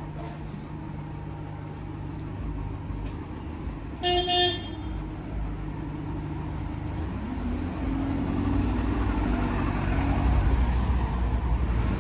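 Street traffic: a vehicle engine running steadily, a single short car-horn toot about four seconds in, then traffic noise growing louder toward the end as a vehicle approaches.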